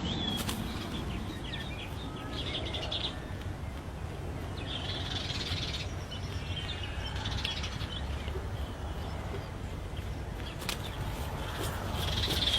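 Birds chirping in bursts of high calls every couple of seconds, over a steady low rumble.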